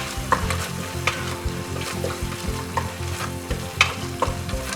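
Onion-tomato masala sizzling in hot oil in a pressure cooker as a spoon stirs it, with irregular scrapes and clicks of the spoon against the pot, as freshly added red chilli powder is worked in.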